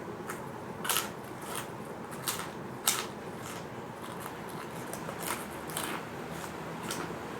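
Crisp fish crackers crunching between the teeth while being chewed, in a run of sharp crackly bites with a short lull in the middle.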